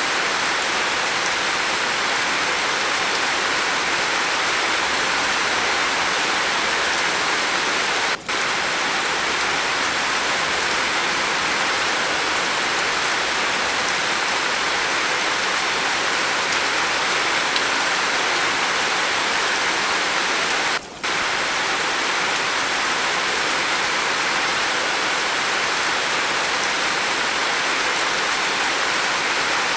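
Steady, even rain falling on a roof, a dense continuous hiss with no thunder. The sound cuts out for an instant twice, about 8 seconds in and about 21 seconds in.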